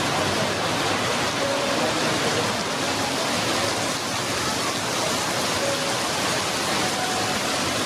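Heavy rain falling steadily on wet pavement and parked cars, an even hiss with no let-up.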